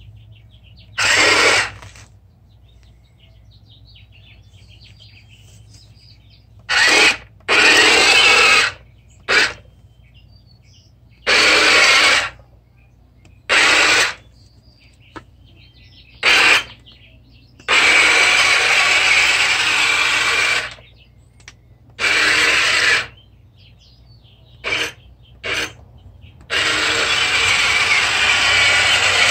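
Radio-controlled toy tank's small electric drive motors and gear train whirring in start-stop spells, some well under a second and some two to three seconds long, as it is driven in short moves.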